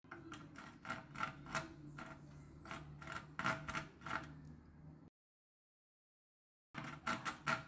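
Small screwdriver scraping and clicking against a screw and the rusty metal clock case in a run of sharp, irregular clicks. The sound cuts off abruptly about five seconds in and starts again about a second and a half later.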